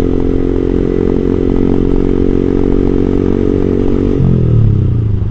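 Yamaha R15 V3's single-cylinder engine through an R9 GP SS aftermarket exhaust with a bassy note, running at steady revs while riding, then the revs falling off about four seconds in as the throttle is closed.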